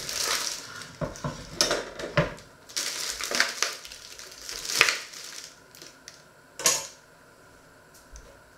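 Kitchen handling noises: a plastic tomato tray rustling and a wooden cutting board being moved and knocked on a wooden table, a string of short clatters and scrapes, with one more sharp knock a couple of seconds before the end.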